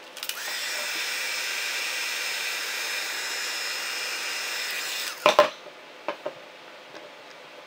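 Wagner heat gun blowing steadily with a faint whine, heating the vinyl skin on a drone controller's antenna so that it shrinks to fit. It cuts off about five seconds in, followed by two sharp knocks and a few light clicks.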